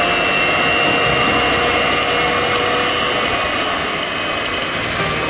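Electric mixer running steadily with a motor whine, beating condensed milk, honey and leavening agent into an ice-cream batter.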